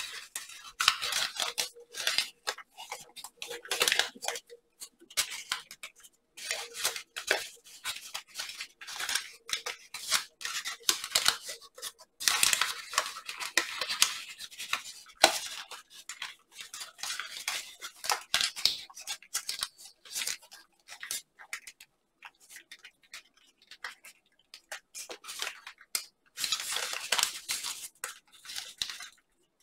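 Sheet of origami paper rustling and crinkling as it is folded and creased by hand, in irregular bursts with short pauses between them.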